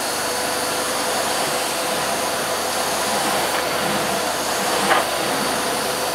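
Hoover Silent Energy cylinder vacuum cleaner running steadily on its lower-power Silent Energy setting, a constant rush of airflow with a steady hum, as the floor nozzle is pushed back and forth over carpet. A brief knock about five seconds in.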